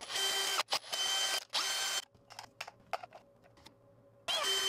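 Cordless drill-driver running in short bursts of about half a second, three in quick succession and one more near the end, driving M4 bolts into a 3D-printed planetary gearbox stage. Light clicks of parts being handled come in between.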